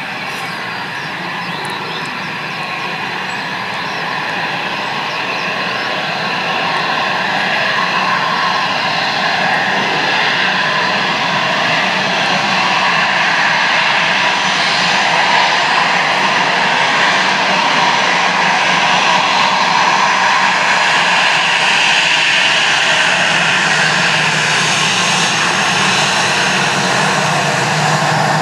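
Airbus A321 jet engines at taxi power, a steady whine with several held tones over a rushing noise. It grows louder over the first half as the airliner rolls up to and past close by.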